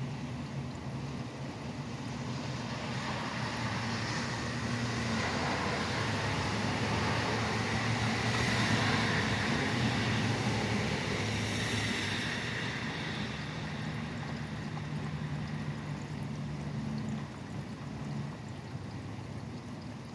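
Steady rain with a vehicle passing on the wet highway: its tyre hiss swells for several seconds, peaks about halfway through, then fades, over a low engine hum.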